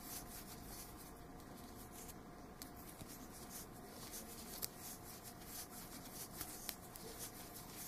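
Faint soft rustling and small scattered ticks of yarn being drawn through and worked with a crochet hook, over a faint steady hum.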